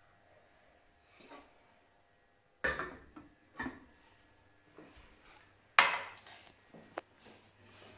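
Kitchenware being handled on a hob and counter: a stainless steel pot, its lid and a glass knocking and clinking. After a quiet start there are several separate knocks, the loudest about six seconds in, with a sharp click a second later.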